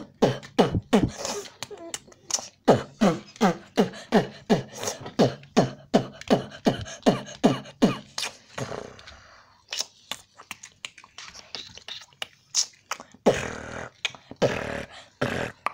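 A child making car noises with the mouth while playing with a toy car: a quick run of short falling 'vroom' sounds, about three a second, then a few scattered clicks and two longer hissing bursts near the end.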